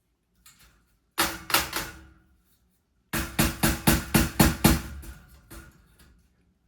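Small mallet tapping aluminium cage frames together: about four strikes, then a quicker run of about eight at roughly four a second, each leaving a short metallic ring.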